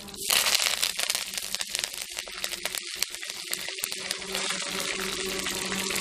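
Fresh green leaves dropped into hot oil in a clay pot and frying. The sizzle flares up loudly about a third of a second in, then settles into a steady sizzle with small crackling pops.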